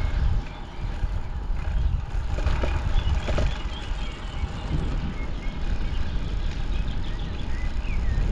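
Wind buffeting the microphone in a steady, uneven low rumble while riding a bicycle, with a few short high chirps over it.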